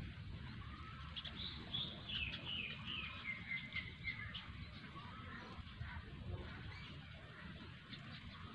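Bird calling: a quick run of high chirps that falls in pitch, from about a second in to about four seconds in, then scattered fainter chirps, over a steady low rumble.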